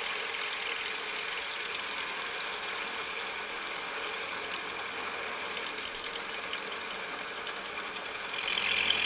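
Vertical milling machine running with an end mill taking a 0.050-inch-deep pass to mill a wrench flat on a round part. Steady spindle and motor sound carries an irregular ticking of the cut that builds about three seconds in, with a couple of sharp clicks around six and seven seconds.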